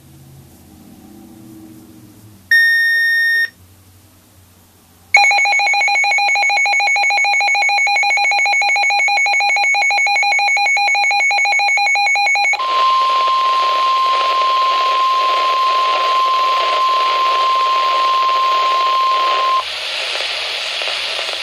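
NOAA Weather Radio alert sequence heard through a weather radio receiver. It opens with a short one-second electronic beep, then about seven seconds of buzzy digital data tones, the SAME alert header. Then comes the steady 1050 Hz warning alarm tone over radio hiss for about seven seconds, which cuts off shortly before the end.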